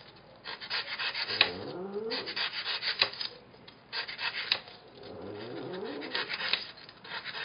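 Craft-knife blade sawing through a styrofoam cylinder: a run of gritty scraping strokes, with two spells of squeaky, pitch-gliding squeals as the blade drags through the foam.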